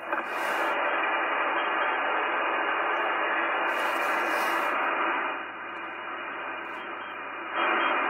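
Trio TS-520S SSB transceiver's speaker putting out steady 80-metre band static and hiss, with no signal on frequency. The noise drops in level for about two seconds past the middle, then comes back up near the end.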